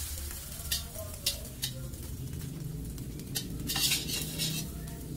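Metal spatula scraping and clacking against a wok as an egg omelette is lifted and turned, over a low sizzle of frying oil. Several short strokes, with a longer scrape about four seconds in.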